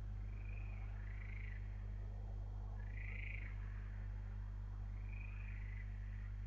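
Steady low electrical hum on a webcam's audio feed, with an animal's short arched calls repeating every second or two over it.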